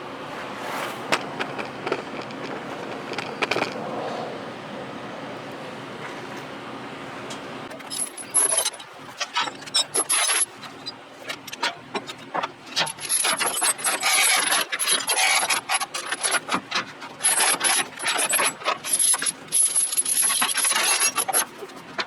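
Half-inch steel tie-down chains clinking and rattling as they are handled and pulled into place to secure the load. For about the first eight seconds there is only a steady background; then dense, irregular metallic clinks and scrapes carry on to the end.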